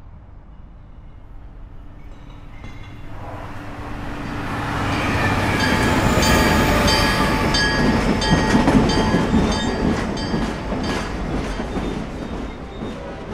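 Diesel locomotive passing close by: its sound builds over a few seconds, peaks as it goes past, then fades as it moves away. A quick run of wheel clicks over the rails comes as it passes.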